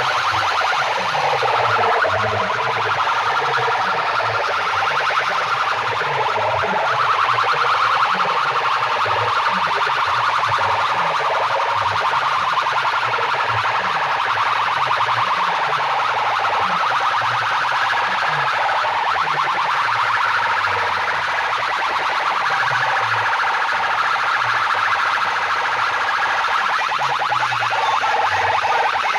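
Large DJ loudspeaker sound systems played at full volume in a sound competition: a harsh, siren-like wail over repeated falling bass notes, a couple each second.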